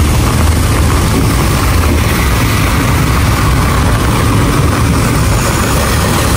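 Cars and a minivan driving slowly through muddy floodwater on the street, engines running and tyres splashing through the water, over a steady, dense rush of noise.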